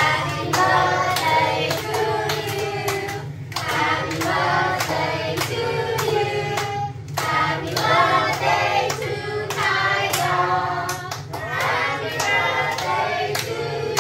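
A group of voices singing together, with hands clapping along throughout.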